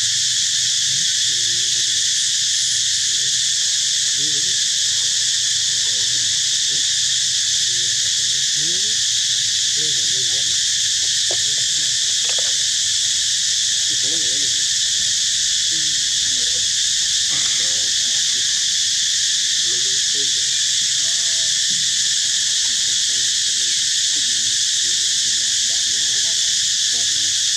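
Steady, unbroken outdoor insect chorus, a high shrill drone that dominates throughout, with faint short rising and falling calls underneath it here and there.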